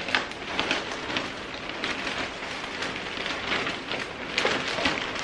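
Dry granular gypsum pouring from a paper sack into a plastic tote piled with dry amendments: a continuous grainy rush of falling grains that swells and eases unevenly.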